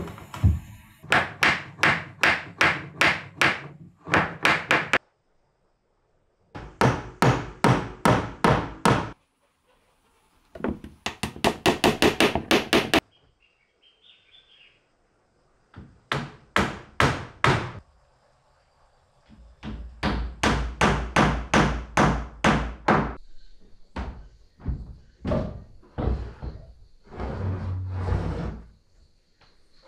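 Hammer blows on wood in quick, even runs of about three strikes a second, as wooden strips are fastened into a large round door frame; each run stops abruptly.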